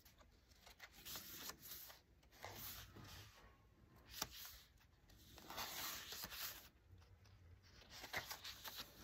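Faint rustling of the paper pages of a handmade junk journal as they are turned and handled, in several soft spells, with one short tap a little past four seconds in.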